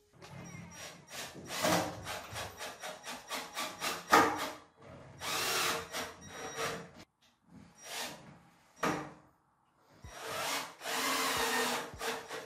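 Small cordless drill-driver, set low, driving Phillips screws into the wooden bed base to fix the casters. It runs in bursts of a second or two, with shorter clicks and scrapes of handling between them.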